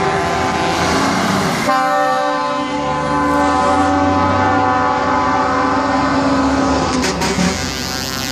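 Truck air horns blowing long, steady multi-note chords. One chord gives way to a different one about a second and a half in, and it holds until about a second before the end.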